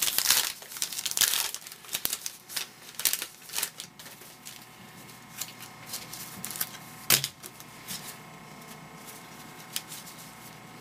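Crinkling and tearing of a trading card pack wrapper as a pack is handled and torn open, with scattered clicks and one sharp knock about seven seconds in.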